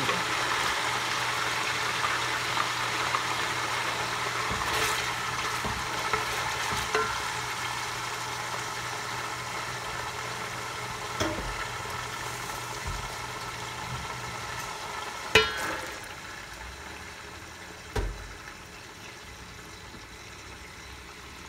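Hot oil sizzling in an aluminium pot as ground onion paste fries with ginger-garlic paste, the sizzle slowly dying down. A few sharp knocks come from the pot, the loudest about fifteen seconds in.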